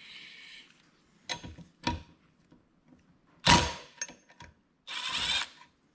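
Cordless driver with a 10 mm socket running in two short bursts, about half a second each, backing a bolt out of a small diesel engine's aluminium case. A couple of light metal clicks come before them.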